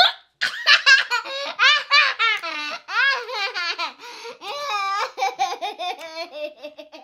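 A young girl laughing hard in long, high-pitched peals that rise and fall almost without a pause.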